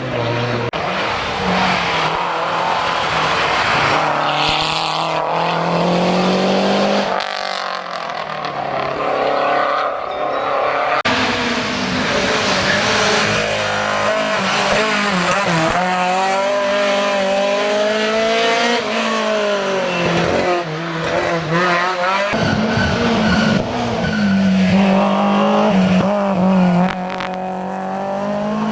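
Historic rally car engines revving hard, their pitch climbing and dropping again and again through gear changes. The sound changes abruptly a few times.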